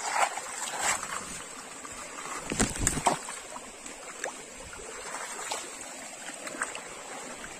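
Feet wading and splashing through a shallow, muddy forest stream, with its water running steadily underneath. The loudest splashes come between two and a half and three seconds in.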